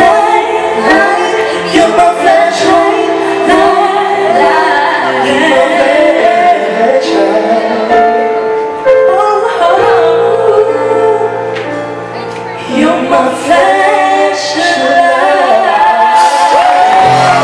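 Live duet by two male singers, one a high boyish voice and one a man's voice, singing into handheld microphones with a live band accompanying.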